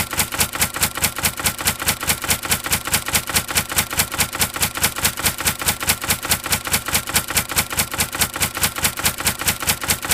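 Typewriter keystroke sound effect: rapid, even clacks at about five a second.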